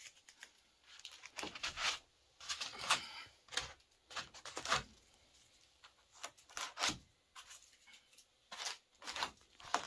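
Blue painter's tape being peeled off and torn in a string of short, irregular rips, with light rustling between them.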